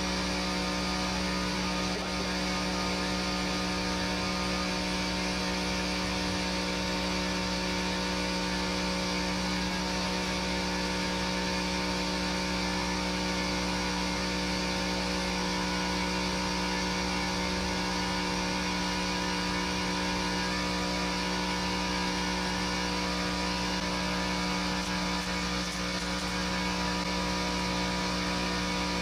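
CNC router running with a steady hum of several fixed tones.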